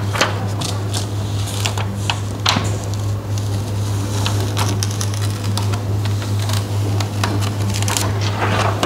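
Clear plastic DTF transfer film being peeled by hand off a printed T-shirt, with scattered crackles as it comes away from the print, over a steady low hum.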